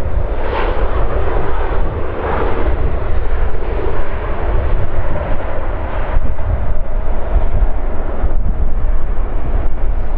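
Jet airliner engines making a loud, steady rumble, heaviest in the deep bass, with a noisy roar above it.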